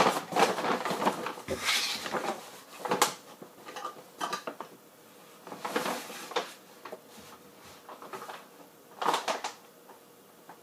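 A bag rustling and small objects clattering as they are handled, in scattered short bursts.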